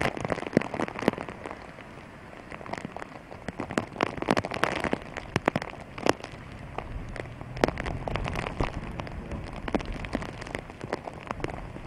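Heavy typhoon rain falling steadily, with frequent irregular sharp drop hits. A low rumble swells briefly past the middle.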